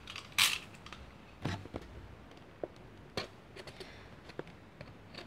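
A plastic tube package being handled and cut open with a utility knife: a brief scrape about half a second in, then scattered light clicks and taps.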